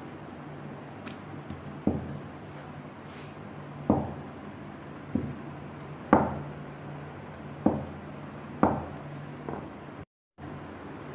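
Wooden rolling pin rolling out samosa dough on a stone worktop, knocking sharply against the counter about seven times at uneven intervals, over a steady low hum. The sound cuts out briefly near the end.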